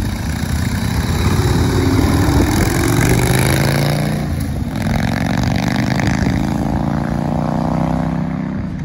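1979 Harley-Davidson Ironhead Sportster's 1000cc V-twin accelerating away on a ride. Its pitch climbs, dips briefly a little over four seconds in, then climbs again. It is running smoothly on a newly fitted S&S-style carburetor.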